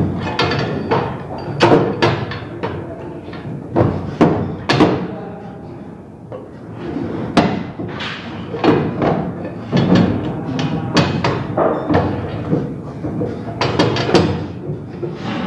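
Irregular metal knocks and clatter as a steel pipe is handled and worked into place overhead, with some sharp ringing strikes.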